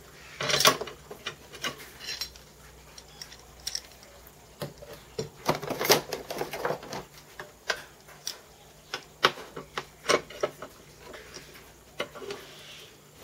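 Cast aluminium milling-machine bed and feet being shifted and tapped into alignment under a steel C-clamp: irregular metallic clinks and knocks, the loudest under a second in and a cluster around six seconds in.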